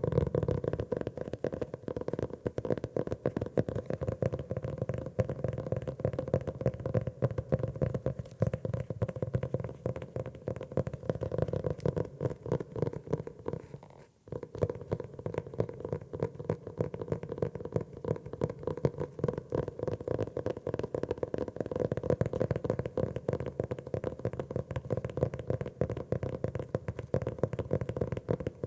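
Rapid tapping on a notebook, a dense run of many taps a second, with a short break about fourteen seconds in.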